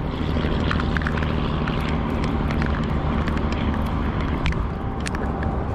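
A steady low motor hum with scattered light clicks and ticks over it.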